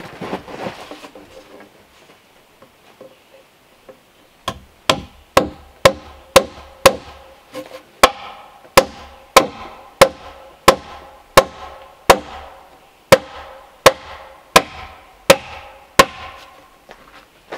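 Hammer striking at a steady pace, about eighteen blows, each ringing briefly. The blows start about four seconds in after some quiet handling and stop shortly before the end.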